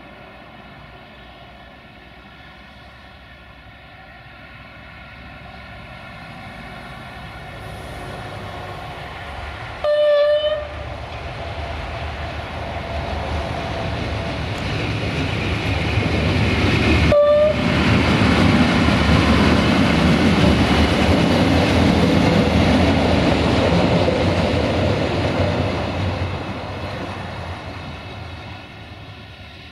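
Duewag Class 628 diesel railcar sounding a short horn blast about ten seconds in and a brief toot a few seconds later. Its diesel engine and wheels on the rails grow loud as it runs past, then fade.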